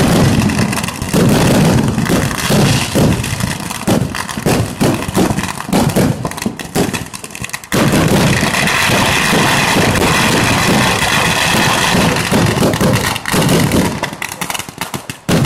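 Kerala temple-festival fireworks (vedikettu): a rapid barrage of firecracker bangs, many reports a second. After a brief lull about halfway through, they merge into a dense, continuous crackle.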